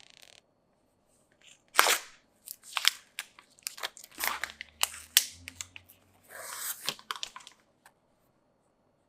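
Hands unboxing an iPhone 12 Pro: packaging crackling, clicking and crinkling. A sharp crackle comes about two seconds in, then a run of short clicks and crinkles, and a longer rustling tear or slide near the end.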